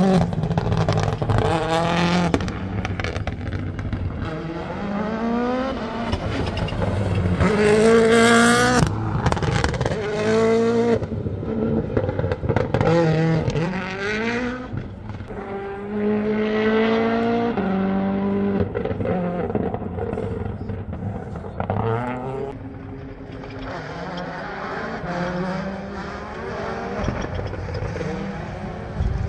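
Rally car engine driven hard on a mountain stage, its pitch sweeping up gear after gear with short drops at each shift, coming and going through the bends and quieter over the last several seconds.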